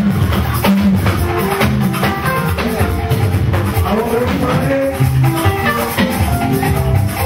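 Music with drums and shakers keeping a steady beat under sustained pitched notes.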